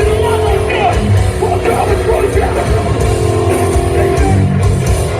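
Hardcore punk band playing live at full volume: distorted guitars and drums under shouted vocals.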